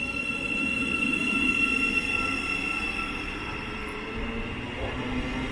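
Siemens Class 700 Thameslink electric multiple unit pulling slowly away from the platform, with a steady rumble under a high traction whine. The whine fades after a few seconds, and a lower note rises as the train gathers speed near the end.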